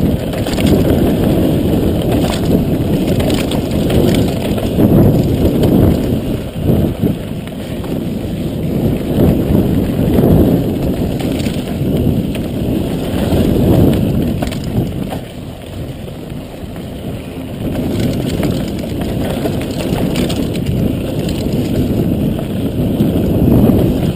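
Mountain bike riding fast down a dry dirt trail: heavy wind rumble on the microphone over the crunch and rattle of the tyres and frame, with scattered knocks over bumps. It eases briefly about two-thirds of the way through.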